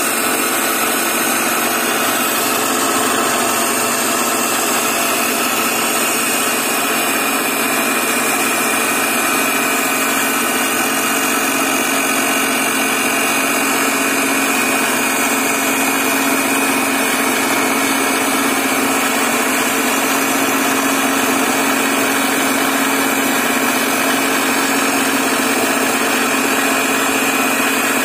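Abrasive cut-off grinding disc on a machine spindle grinding the tooth slots of a steel gear blank: a steady, unbroken grinding with a constant whine, the disc under load in the cut.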